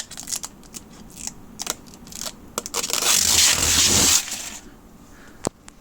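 Small clicks and crinkles of plastic being handled. About three seconds in, a loud tearing, ripping noise lasting just over a second as a plastic lid is pulled off, then a couple of sharp clicks near the end.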